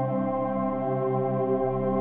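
Ambient background music: slow, steady sustained synth-pad tones with no beat.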